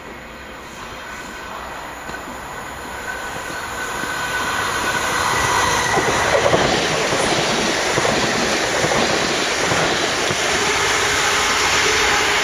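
South West Trains Class 450 electric multiple unit running past on the nearest track, its wheel-on-rail noise building over the first six seconds and staying loud as it goes by.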